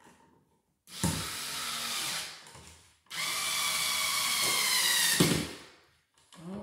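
Handheld power drill driving the mounting screws of a dimmer switch into an electrical box. There are two runs of the motor, each about two seconds, with a short pause between them, and the second run drops slightly in pitch toward its end.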